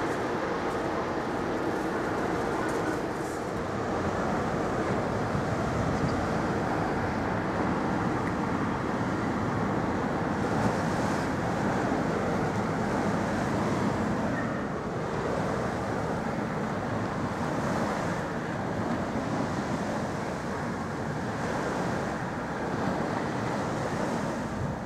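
Large car ferry Cap Finistère passing close: a steady rumbling rush of its engines and the water of its wash, even throughout, with no sharp sounds.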